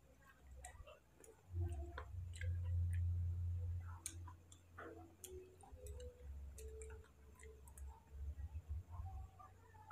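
Close-up eating sounds of someone chewing small mansanitas fruits: scattered soft clicks and smacks of the mouth, with a low rumble loudest from about a second and a half to four seconds in.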